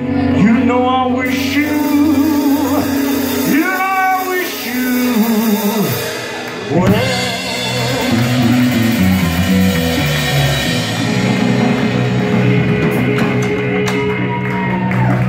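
Live blues-rock band playing a slow blues: lead electric guitar with bent, wavering notes over electric bass and drum kit.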